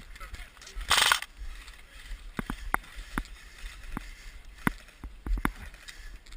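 Airsoft guns firing: a short rushing burst about a second in, then scattered sharp single clicks at irregular intervals.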